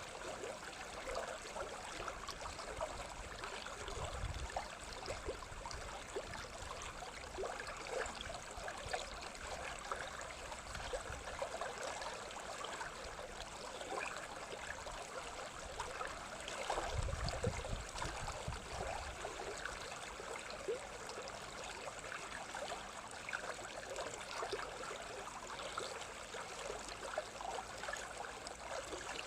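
Running water of a stream babbling steadily, with two brief low rumbles about four and seventeen seconds in.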